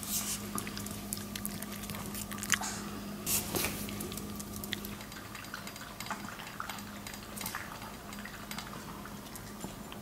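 Maltese dog eating dog food from a plastic bowl: irregular small clicks, crunches and knocks of food and bowl, one sharper knock about two and a half seconds in.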